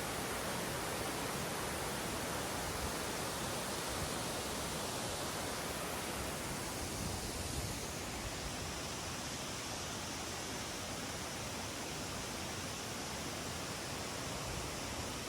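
Waterfall roar: a steady rushing of water falling about 25 m, with a slight change in its tone about eight seconds in.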